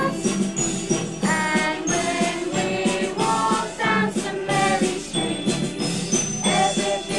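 A group of voices singing a musical-theatre song together over instrumental accompaniment.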